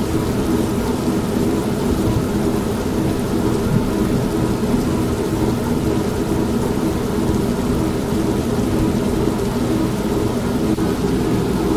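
Steady rain and low thunder mixed with an old washing machine running steadily; the sound is even throughout, weighted low, with no single sharp thunderclap.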